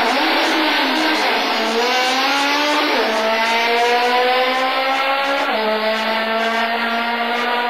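Naturally aspirated Honda F22 inline-four drag car accelerating hard from the launch, its engine note climbing through the gears. The pitch drops for upshifts about three seconds in and again about five and a half seconds in.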